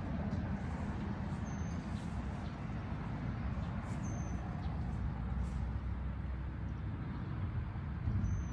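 Steady low outdoor rumble, with three short high chirps about one and a half, four and eight seconds in.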